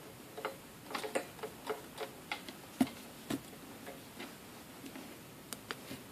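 Small irregular clicks and taps, about fifteen over six seconds, with two louder ones near the middle: a TS-100 soldering iron being handled and its small push buttons pressed to step through its menu.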